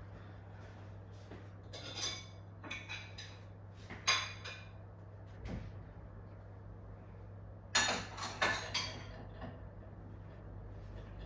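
Kitchenware clinking and clattering: a few sharp clinks about two to four seconds in, then a quick cluster of clatters about eight seconds in, over a steady low electrical hum.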